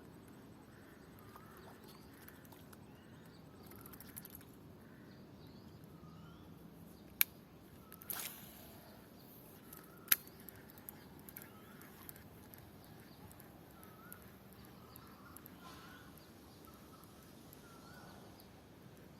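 Faint outdoor ambience with small birds chirping in short repeated calls. Two sharp clicks stand out about seven and ten seconds in, with a brief rustle just after eight seconds.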